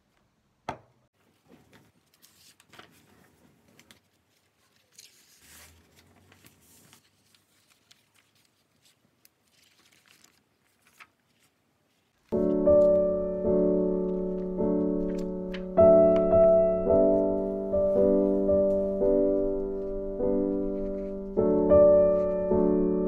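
Faint scattered clicks and rustles of small objects being handled, with one sharper click under a second in. About halfway through, background music of soft electric-piano chords starts and carries on.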